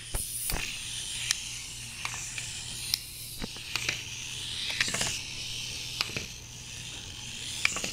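Clockwork motor of a Z Windups wind-up toy car whirring steadily as it runs down, with sharp irregular clicks and knocks as the little car tumbles and flips over.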